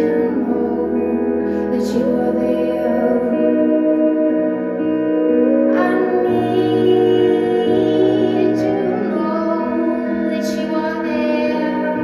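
Live music from acoustic guitar and electric guitar, with held notes that change pitch in steps, and a woman singing.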